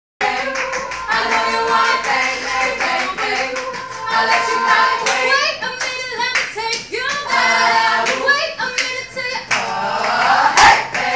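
Women's a cappella group singing in close harmony, with hand claps keeping time. A loud swooping vocal glide peaks about ten and a half seconds in.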